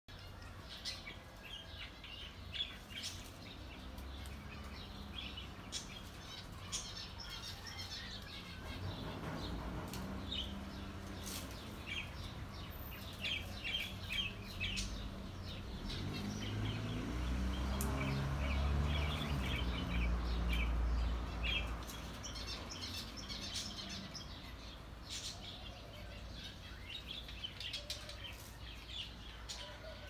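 A mixed flock of small aviary birds chirping, with many short, high chirps overlapping throughout. A low rumble builds in the middle and is loudest about two-thirds of the way through.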